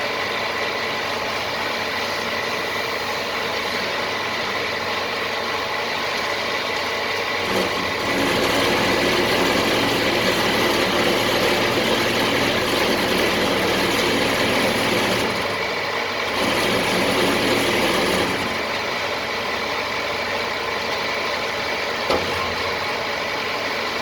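Self-loading concrete mixer's engine running steadily, growing louder and deeper about a third of the way in, dipping briefly, then dropping back to its earlier level about three quarters of the way through.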